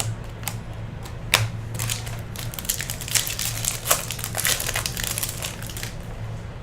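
Foil trading-card pack wrapper crinkling as it is torn open and crumpled: a few sharp clicks, then a dense run of crackles that stops about a second before the end.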